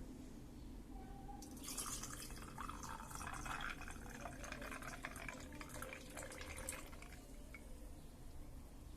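Liquid being poured and trickling, with small drips and ticks, starting about a second and a half in.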